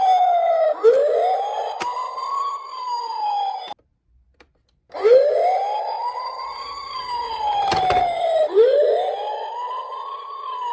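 Toy emergency vehicle's electronic siren wailing, a slow tone that rises and falls over and over. It cuts off about four seconds in and starts again a second later, with a sharp knock near eight seconds.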